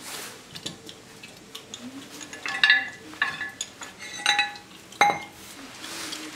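Steel pipe clanking against the metal jaws of a pipe vise as it is handled and pulled free: a handful of sharp metallic clinks, each with a short ring.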